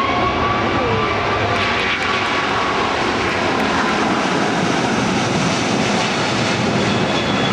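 Airbus A380's four jet engines at take-off thrust as it climbs out and passes overhead: a loud, steady roar with a high whine that slowly falls in pitch.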